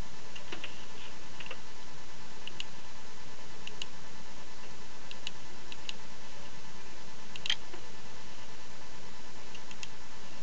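Scattered computer mouse clicks over a steady hiss with a faint hum; the sharpest click comes about seven and a half seconds in.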